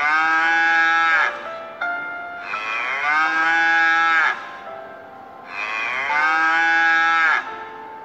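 A cow mooing three times, each moo a long, loud call of about two seconds that slides down in pitch at its end. Soft musical notes play in the gaps between the moos.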